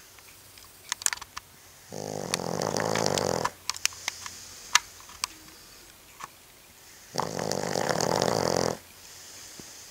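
A dog snoring in its sleep: two long, rattling snores about five seconds apart, with quieter breathing between them. Several sharp clicks fall between the snores.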